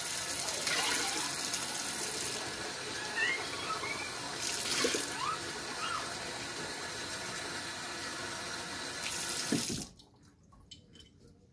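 Kitchen tap running steadily into a stainless steel sink, the water splashing on a plastic cup as it is rinsed under the stream. The flow cuts off suddenly near the end.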